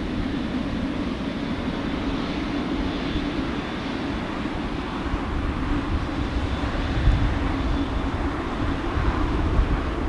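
Jet airliner engines running steadily at an airport, a continuous rumble with a low hum.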